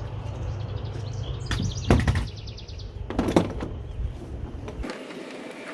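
A nail being pulled out of a wooden deck railing: a creaking squeal of the nail coming out of the wood and two sharp knocks of the tool on the board, about two seconds in and about three seconds in.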